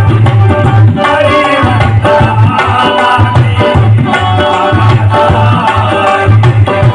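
Instrumental break in a Bhim geet/qawwali: a tabla rhythm with deep, repeated bass strokes under a held melody line.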